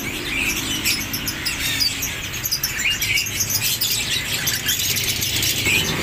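Many caged songbirds chirping and twittering at once, a dense chorus of short high calls, over a low steady hum.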